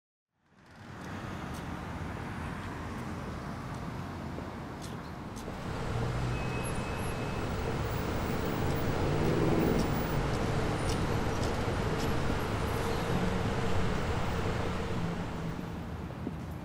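City street ambience: steady road traffic noise from passing cars. It fades in just after the start, swells louder about six seconds in, and fades out near the end.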